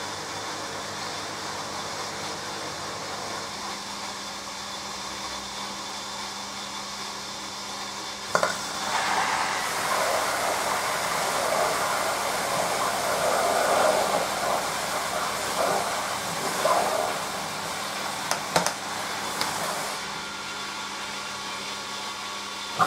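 Hoover AXI washing machine at the start of its main wash: a steady hum, then after a click about eight seconds in, a louder rushing and splashing of water that runs for about twelve seconds before dropping back to the hum.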